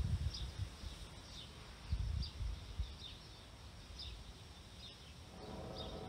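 A small bird chirping over and over, short high descending chirps about twice a second, with low rumbles near the start and about two seconds in. Near the end the background changes to a faint steady hum.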